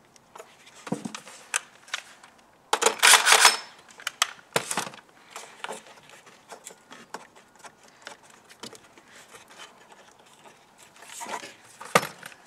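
Scattered small clicks, taps and rattles of metal and plastic as a hand fits the positive cable onto a car's 12-volt battery terminal. There is a louder rustling scrape about three seconds in, another shortly after, and one more near the end.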